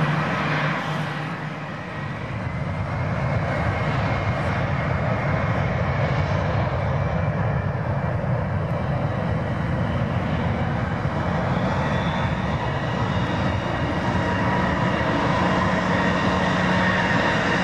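Gulfstream G550's two Rolls-Royce BR710 turbofans at takeoff power as the jet starts its takeoff roll: a steady jet engine noise with a faint high whine, dipping briefly about two seconds in and then holding loud.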